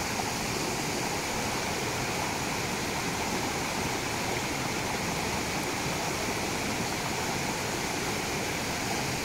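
Small mountain stream rushing steadily over rocks and little cascades.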